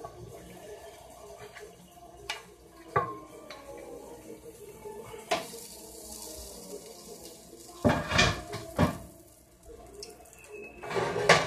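Cookware clatter: a spoon knocking and scraping against a pot of cheesy noodles, and pans knocking on the stove grates. There are a few single knocks at first, then louder bursts of clatter about eight seconds in and again near the end.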